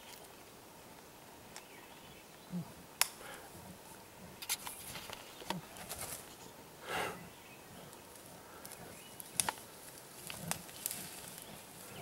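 Faint rustling and scattered sharp twig snaps of movement through forest undergrowth, with a short breathy huff about seven seconds in.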